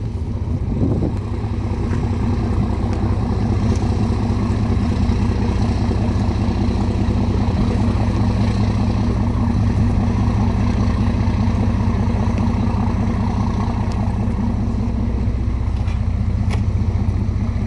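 Boat engine running steadily, a low even drone that holds the same pitch throughout.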